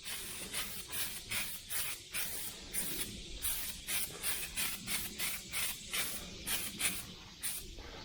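Aerosol can of Bulldog adhesion promoter spraying in short, quick bursts of hiss, about three a second, as a light coat goes onto a masked car grille before painting.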